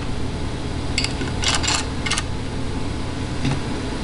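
Plastic LEGO pieces clicking and clattering as they are handled and pressed onto the build: a few short clicks about one to two seconds in, over a steady low background hum.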